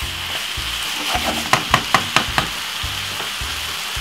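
Minced beef and vegetables sizzling as they brown in a frying pan while being stirred with a wooden spoon. About a second and a half in, the spoon knocks against the pan five times in quick succession.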